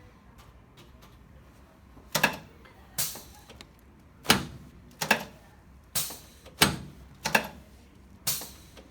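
Chiropractic spinal adjustments on a patient lying face down: a run of about eight sharp knocks, some doubled, roughly one a second, starting about two seconds in.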